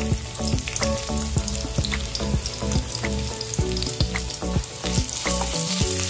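Crushed garlic cloves frying in hot oil in a wok: a steady sizzle with many small pops and crackles.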